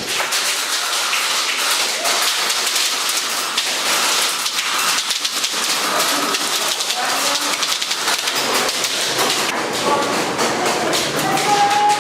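Airsoft guns firing in a close-quarters game: a dense, continuous crackle of shots and BBs pattering against surfaces, with voices calling out now and then.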